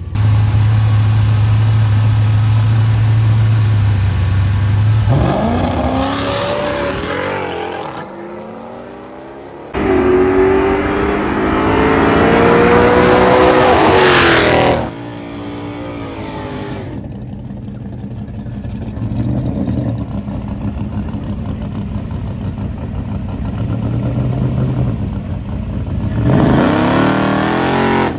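Drag-racing car engines. One is held at a steady high rpm, then revs up with rising pitch. Another accelerates with a rising pitch that cuts off suddenly, followed by engines idling and a short rev near the end.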